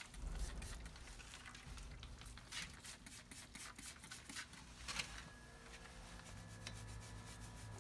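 Faint scattered clicks and rubbing from hand tools being handled at a car's bare front wheel hub, with one sharper click about five seconds in, over a faint low hum.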